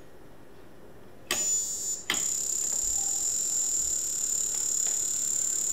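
Steady high-pitched whine from a General Radio Strobotac Type 1531 tube stroboscope as its lamp flashes, a sign the repaired unit is firing again. The whine is absent at first, cuts in with a click about a second in, drops out briefly, then returns with another click about two seconds in and holds steady.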